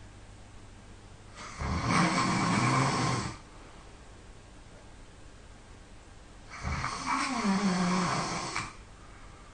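A sleeping person snoring loudly: two long snores about five seconds apart, each lasting about two seconds, the second sliding down in pitch toward its end.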